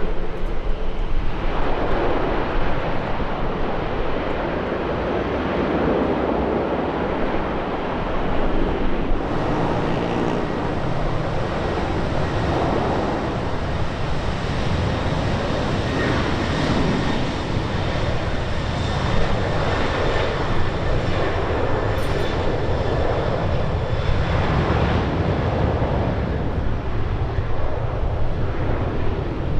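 Jet airliner engines, a loud steady noise that holds at much the same level throughout.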